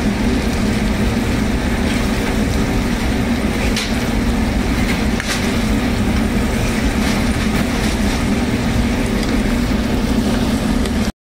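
Steady, loud fan-like hum and rumble of kitchen machinery over a gas range, with a metal spoon stirring and lightly scraping in an aluminium frying pan of cooking liver and onions.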